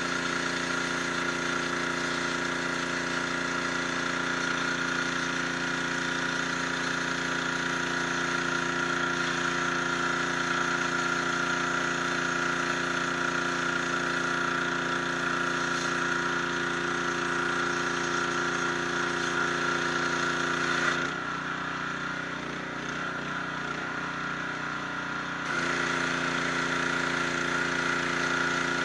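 High-pressure washer running, its motor and pump humming steadily under the hiss of the water jet blasting the bluestone base and paving. About 21 seconds in the spray drops away for about four seconds while the machine keeps running, then comes back.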